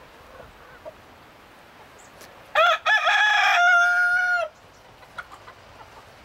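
Rooster crowing once, starting about two and a half seconds in: a few short broken notes, then one long held note, about two seconds in all.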